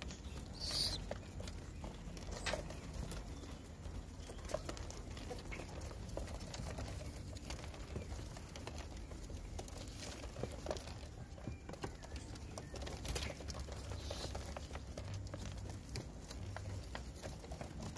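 Fantail pigeons pecking grain off a concrete coop floor and shuffling about: many small scattered taps and scrapes, with a few sharper, louder sounds, one about a second in.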